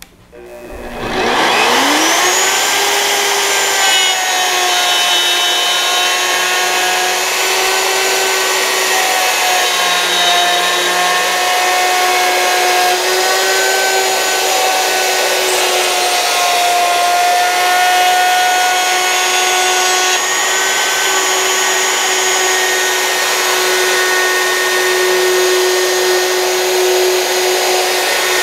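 Handheld wood router spinning up about a second in, then running steadily at a high whine as its bit cuts through the board, clearing out the waste left between the two outer grooves of a 3/4 inch wide dado.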